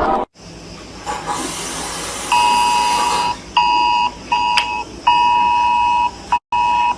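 Emergency alert broadcast tone: about two seconds of static hiss, then a run of long and short electronic beeps at one steady pitch.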